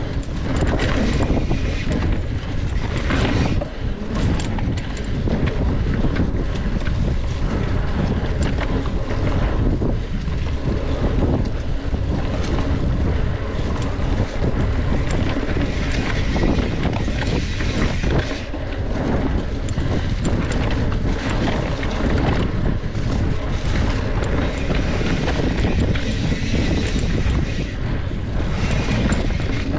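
Wind buffeting the microphone of a camera on a moving mountain bike, over the constant rattle of the bike on a rough dirt trail.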